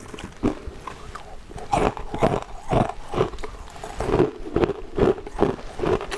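Close-miked crunching of frozen flavoured ice cubes being chewed, about two sharp crunches a second.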